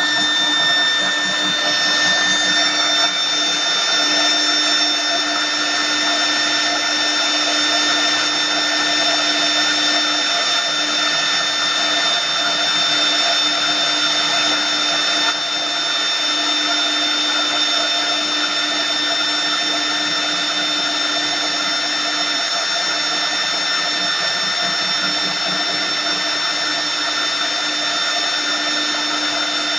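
CNC wood lathe's router spindle running with a steady high-pitched whine while it cuts into a turning wooden column blank, over a rushing noise of the cut. The level drops slightly about halfway through.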